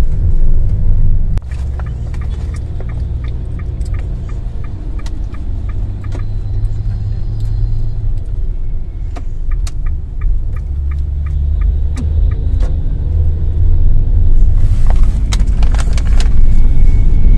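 Steady low road and engine rumble inside a Nissan Serena's cabin, with the turn-signal indicator ticking in two runs of even clicks. The rumble grows louder in the last few seconds.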